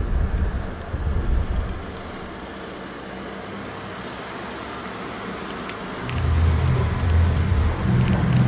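Deep low rumble over a steady hiss, swelling loudly twice: once at the start for about a second and a half, and again from about six seconds in. It is one of the amateur recordings of the 2012 'strange sounds'.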